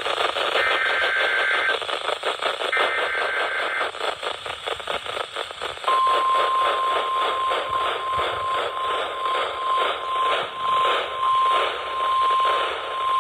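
NOAA Weather Radio alert coming through a hissy, static-laden receiver. The last two bursts of the SAME digital header, each about a second long and a second apart, are followed about 6 seconds in by the steady 1050 Hz warning alarm tone, which holds with brief dropouts. This is the alarm that precedes a broadcast severe thunderstorm warning.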